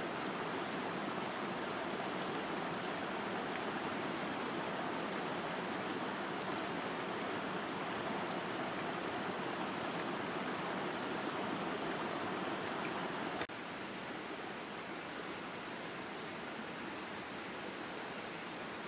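Steady rushing outdoor noise with no bird calls, in the manner of running water or wind. It drops a little in level about two-thirds of the way through.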